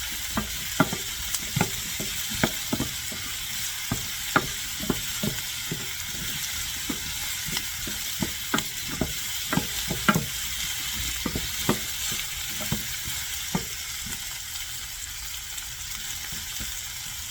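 Zucchini chunks sizzling in hot olive oil in a frying pan with sautéed onion, garlic and bell pepper, with a utensil clicking and scraping against the pan as the vegetables are stirred. The stirring stops about three-quarters of the way through, leaving the steady sizzle.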